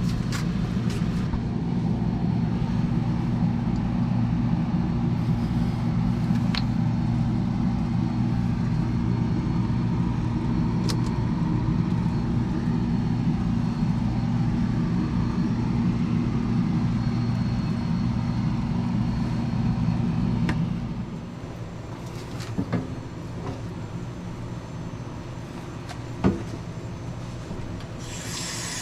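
A steady machine hum, likely a motor, that stops about 21 seconds in, with a few light clicks. A hiss begins just before the end.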